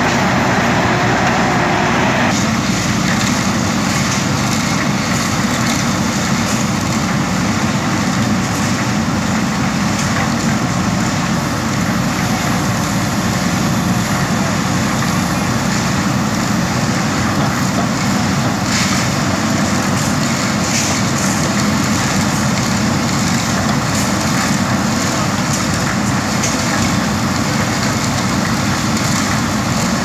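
JCB 3DX backhoe loader's diesel engine running steadily under load as the backhoe arm digs and swings topsoil.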